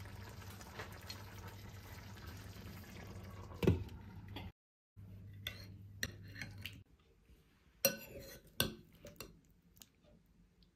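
A metal spoon stirring and scooping a thick shrimp and vegetable curry in a stainless steel pan: wet sloshing and light scrapes over a steady low hum, with a sharp clink against the pan about four seconds in. After a brief break, a few sharp clinks of cutlery on a dish.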